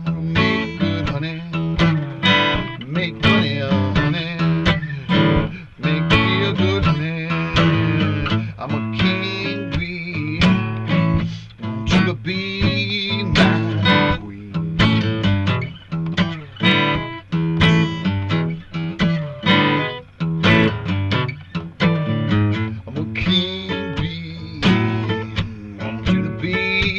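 Guitar playing an instrumental blues break, strummed and picked in a steady rhythm.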